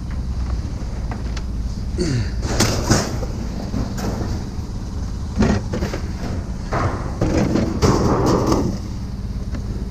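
A vehicle running with a steady low hum. From about two seconds in comes a run of clanks, rattles and a short falling squeak, loudest near the end, stopping about nine seconds in.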